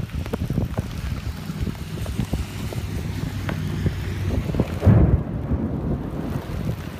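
Storm wind buffeting the microphone with rain, a steady low rumble broken by many short hits, and one louder low thump about five seconds in.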